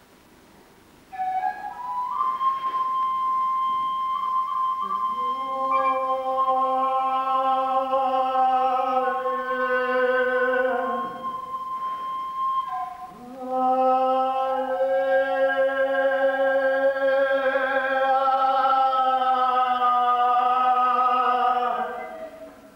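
Slow, drawn-out sung music: a high steady tone starts about a second in, and a voice joins a few seconds later, holding long notes with a slight waver. The voice breaks off briefly about eleven seconds in, resumes, and fades near the end.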